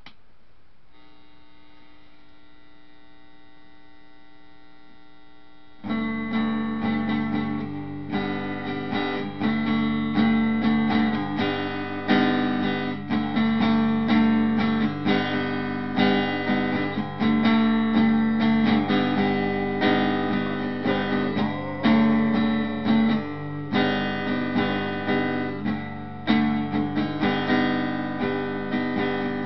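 Guitar strummed in a rhythmic chord pattern, starting loud about six seconds in after a few seconds of a faint steady tone.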